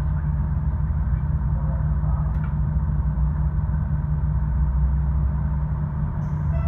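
KiHa 66 diesel railcar's engine running with a steady low rumble, heard from inside the passenger cabin.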